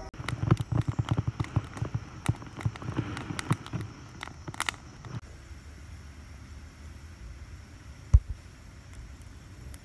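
Wood campfire crackling, with many sharp pops and snaps over the first five seconds, then much quieter. A single low thump about eight seconds in.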